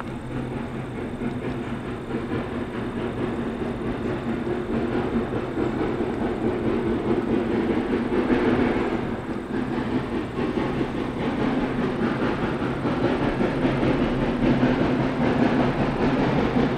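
A train approaching out of sight, its locomotive working and the sound growing steadily louder.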